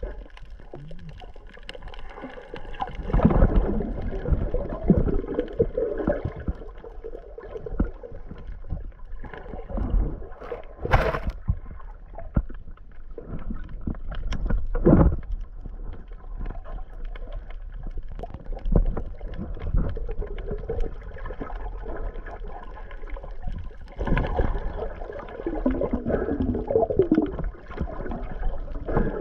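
Muffled underwater water noise picked up by a GoPro Hero 8 held below the surface while snorkeling: uneven swirling and gurgling that swells and fades, with two sharp knocks a few seconds apart near the middle.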